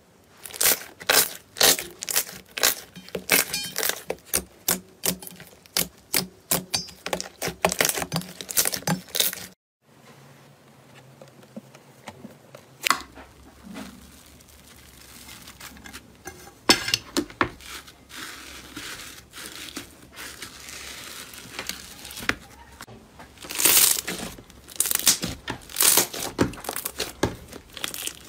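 Hands squeezing and kneading slime, giving fast wet pops and crackles. After a brief break about ten seconds in it turns quieter, then the crackling grows loud again near the end.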